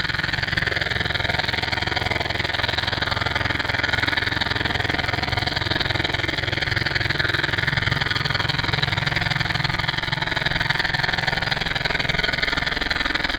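A steady engine-like drone with a fast low pulsing, running unchanged throughout.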